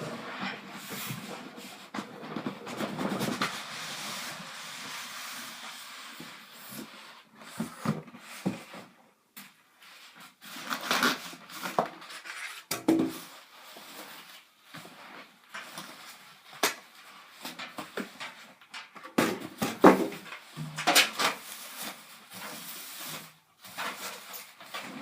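Rustling and scraping of packaging as a PC case is unboxed, with a run of knocks and short scrapes as it is handled.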